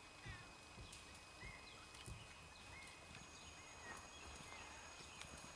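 Near silence with faint, muffled hoofbeats of a warmblood horse moving on arena sand, and a few faint bird chirps.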